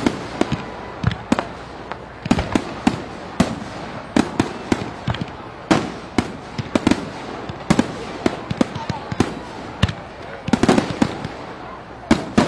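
Fireworks going off in quick irregular succession: many sharp bangs and crackles, several a second, with a dense burst of them about ten seconds in.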